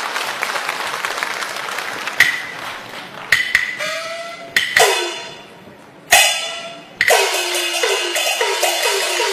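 Peking opera percussion (gongs, cymbals and clappers) playing a luogu pattern: a dense run at first, then separate sharp gong and cymbal crashes that ring out and fall in pitch, and from about seven seconds in a quick, even run of gong strokes.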